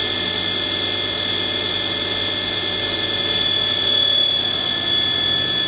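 Spindle of a Hardinge 710 XV vertical machining center running steadily at 3,000 RPM, an even, high-pitched whine.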